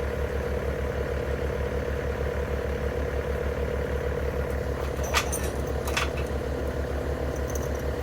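An engine idling steadily with an even low throb, with two sharp knocks about five and six seconds in.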